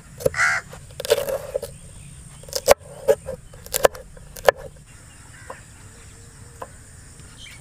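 Chef's knife chopping green chillies on a wooden cutting board: a run of sharp, irregular knocks over the first five seconds, thinning to faint ticks after.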